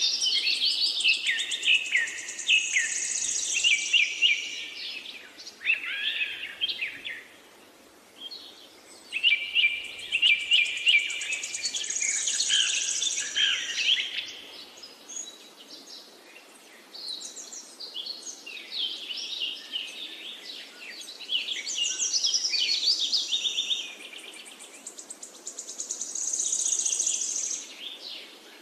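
Small birds chirping and twittering, several at once, in busy spells of quick high chirps, with a lull about six seconds in and another about fourteen seconds in.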